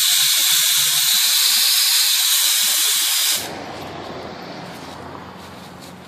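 Steam pressure being vented from the boiler of a homemade steam-locomotive barbecue smoker through its release valve: a loud, steady hiss that cuts off sharply about three and a half seconds in.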